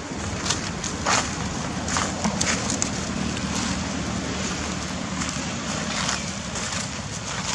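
Wind rushing on the microphone, with scattered short crackles and a faint low drone in the middle.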